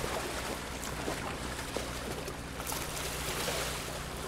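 A boat's motor running steadily, with water rushing and splashing along the hull.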